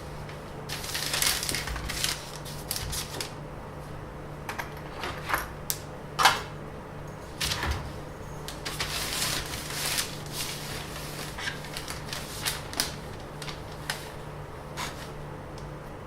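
Irregular clicks, taps and rustling of objects being handled at close range, over a steady low hum.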